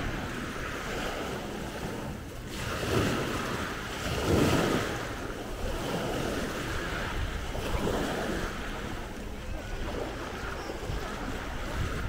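Small waves breaking and washing up the sand at the water's edge, swelling louder about three and four and a half seconds in, with wind rumbling on the microphone.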